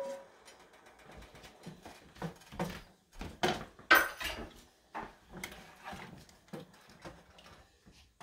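Wooden spoon stirring thick cooked beans in an enamel pot, with scattered knocks and scrapes of utensils against the pot; one sharp clatter about four seconds in.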